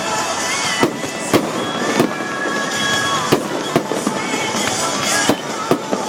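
Fireworks bursting in an aerial display, about eight sharp bangs at uneven intervals, over a steady background of music.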